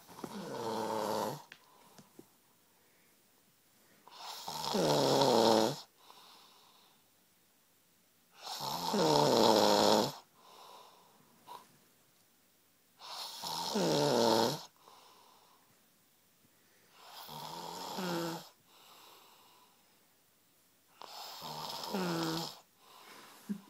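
A man snoring loudly through his open mouth: six long snores, one about every four seconds, with quiet between them.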